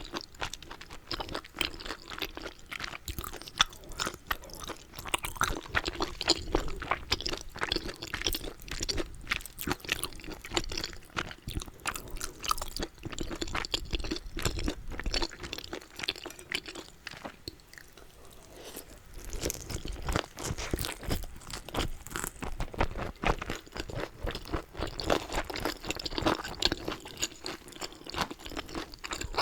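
Close-miked chewing of a dumpling and tteokbokki meal: many quick, irregular wet clicks and smacks of a mouth working soft, sticky food. The chewing eases off for a few seconds around the middle, then picks up again.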